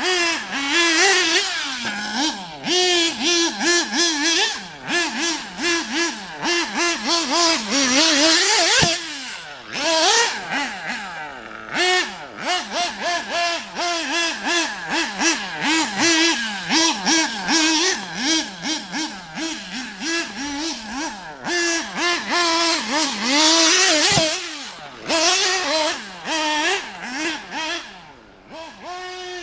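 Alpha Plus Pro Spec .21 nitro engine in an RC car, breathing through an OFNA 063 tuned pipe, revving in quick throttle blips that rise and fall over and over. Twice it climbs in a long sweep to a high-pitched whine before dropping back.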